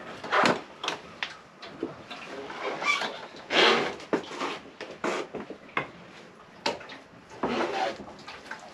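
Irregular clicks, knocks and short scuffs of hands handling parts at a motorcycle's headlight and handlebars.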